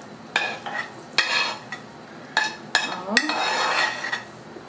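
A spoon scraping fried sausage out of a frying pan into a pot of beans: a run of short scrapes and clatters against the pan, with a longer scrape near the end.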